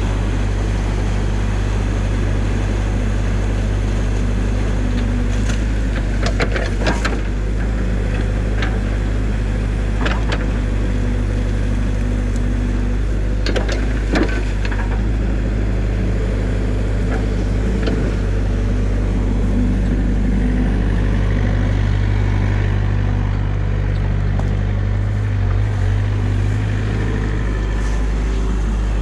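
New Holland mini excavator's diesel engine running steadily, with a few sharp knocks and clacks scattered between about five and fifteen seconds in as it digs out a beaver dam.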